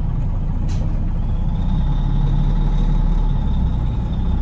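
Semi truck's engine and road noise heard from inside the cab: a steady low rumble while driving in traffic. A faint steady whine joins about a second in and stops near the end, and there is a brief click early on.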